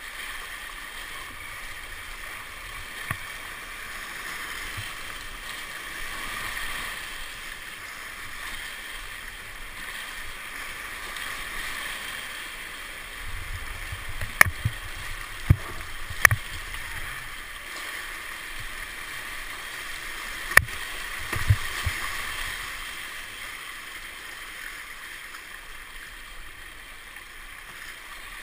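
Whitewater rapids rushing steadily around a kayak, with a few sharp knocks about halfway through and a couple more a little later.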